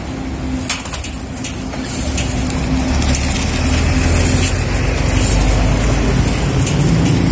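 A motor vehicle engine running close by, a steady low rumble that grows louder about two seconds in, with the crinkle of a thin plastic bag being opened.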